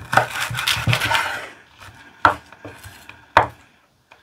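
Kitchen knife slicing green onion stalks on a wooden cutting board. There is a quick run of cuts with the blade knocking on the board in the first second and a half, then two single sharp knocks about a second apart.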